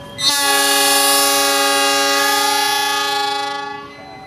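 Diesel locomotive's horn sounding one long blast, several steady tones together, starting sharply and tailing off near the end.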